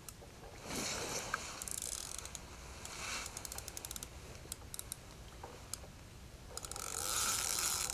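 Fishing reel clicking in quick runs as a hooked carp is played on the rod, with short rushes of hiss in between.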